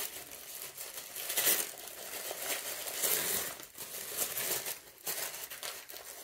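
Tissue paper rustling and crinkling as hands unfold it, in irregular surges that are loudest about one and a half and three seconds in.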